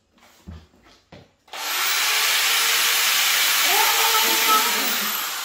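Corded electric drill starting up suddenly about a second and a half in and running free at full speed, a steady dense motor noise.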